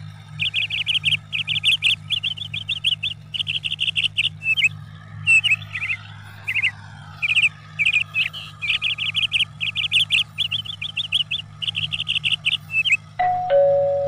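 Birds chirping in quick, regularly repeated bursts over the low, steady drone of a tractor engine. Near the end a two-note falling chime sounds.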